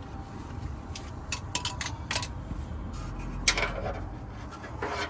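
Irregular light metallic clicks and clatter of hand tools and small parts being handled, with one louder click about three and a half seconds in.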